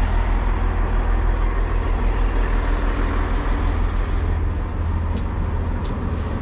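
Passenger train running, with a steady low rumble and a wash of noise.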